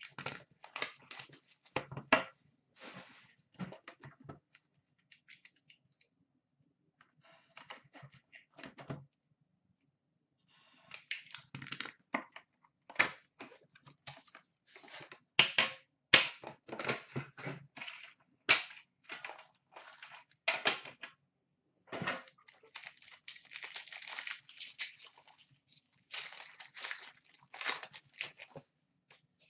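Hands opening a cardboard box of hockey cards and handling the foil wrapping of the pack inside: a string of sharp snaps, clicks and taps with short pauses between them. Near the end a denser stretch of rustling and tearing is heard as the foil is opened.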